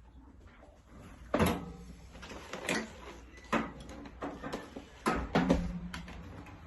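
A series of knocks and clanks, about five hits with a cluster of them near the end, as metal parts and tools are handled on a welding cart. Two of the hits leave a short low ringing after them.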